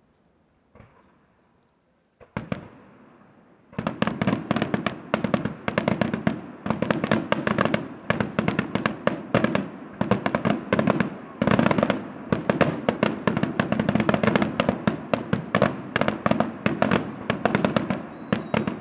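Aerial fireworks display: after a couple of quiet seconds a single shell bang, then from about four seconds in a continuous rapid barrage of shell bursts and sharp reports, many per second.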